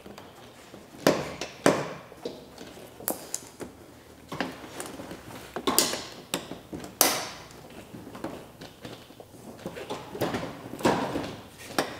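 Irregular plastic clicks, knocks and creaks as a Toyota Tundra's front bumper cover is pried and pulled outward at the fender well against its tight retaining clips.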